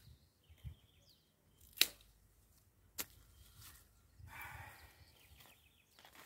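Hand pruning shears snipping orange-tree branches: a few sharp clicks, the loudest about two seconds in, with a brief rustle of leaves a little after the middle.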